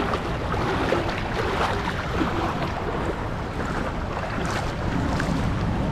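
Water splashing and sloshing around wading legs in a pool, heard as a steady rushing noise on a GoPro action camera's microphone.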